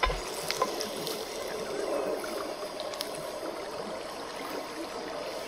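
Steady rushing of running water with a few faint crackles from a wood campfire, and a soft low thump at the very start.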